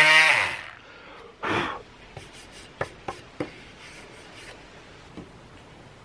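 Parkside PAMFW 12 D4 cordless oscillating multi-tool with a delta sanding pad switching off: its buzz falls in pitch and dies away within a second. A brief scrape and a few light clicks follow as the tool is handled.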